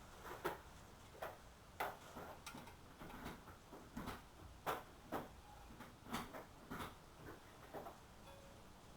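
Irregular clicks and light metal knocks of hand tools working on a front disc brake caliper, about one or two a second.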